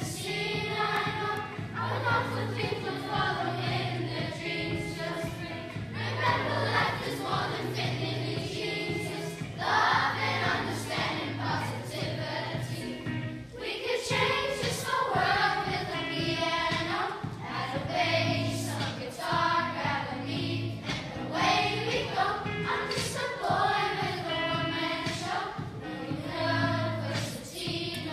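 A class of primary-school children singing a song together as a choir, with instrumental accompaniment holding steady low bass notes beneath the voices.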